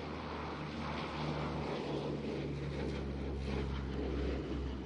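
A C-130 Hercules' four turboprop engines and propellers making a steady low drone as the aircraft flies past low, getting a little louder as it nears.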